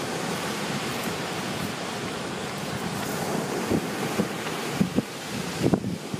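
Steady wind rushing over the microphone with ocean surf washing in behind it, and a few brief thumps near the end.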